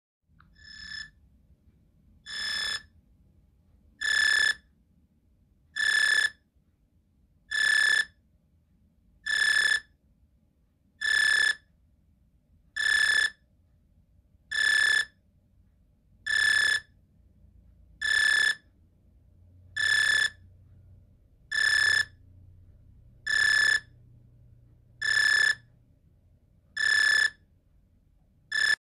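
A messenger app's incoming-call ringtone: a single high electronic tone beeping about once every second and three quarters. The first few beeps swell up, then the rest repeat at an even level.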